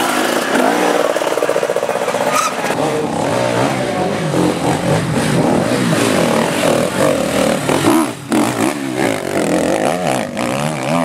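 Enduro dirt bike engines revving hard, the pitch rising and falling unevenly with the throttle as the bikes work through a tight off-road test section.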